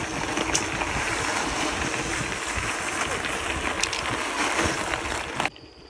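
Steady rushing noise of riding a bicycle on a gravel path: wind on the microphone and tyres rolling over gravel, with a few scattered ticks. It cuts off abruptly near the end.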